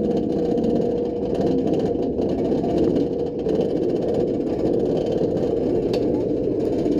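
The chain lift of Alpengeist, a B&M inverted roller coaster, running steadily as it hauls the train up the lift hill.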